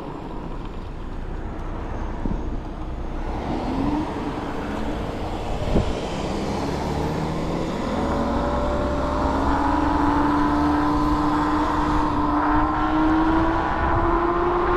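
A vehicle's motor speeding up, its pitch rising slowly and steadily through the second half and getting louder, over a steady rush of road and wind noise.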